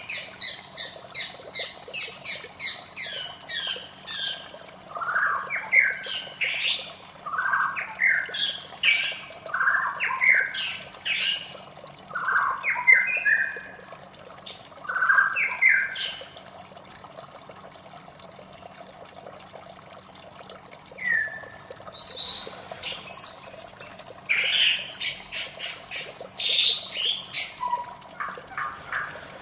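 White-rumped shama singing a varied song: quick runs of sharp repeated notes, then a string of swooping phrases, a pause of several seconds, and more high, rapid notes near the end. A steady wash of running water lies under it throughout.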